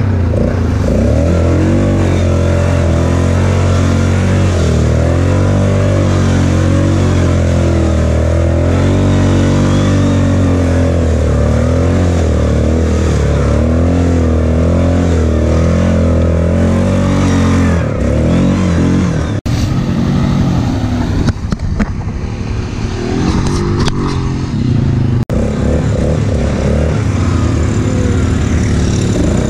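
Single-cylinder ATV engine running under the rider, its pitch rising and falling as the throttle is worked through mud. About nineteen seconds in the engine tone cuts out briefly and gives way to a rougher, weaker rumble for a few seconds before the steady engine note returns.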